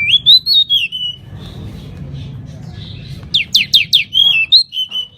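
Pied bushchat (decu) singing in two loud bursts: a clear whistled phrase that rises and falls, then, after a pause of about two seconds, a run of about five quick downward-sweeping notes ending in warbled whistles. A low steady background noise runs underneath.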